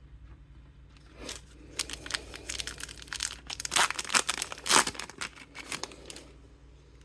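Wrapper of a Heritage baseball card pack being torn open and crinkled by hand. It comes as a run of sharp crackles from about a second in to about six seconds in, loudest near the middle.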